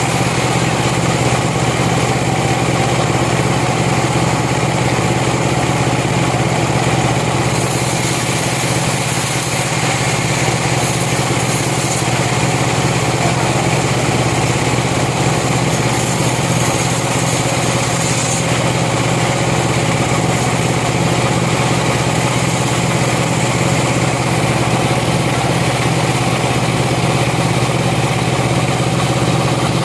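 A sawmill's engine running steadily at an even speed, with a brighter high hiss coming in twice.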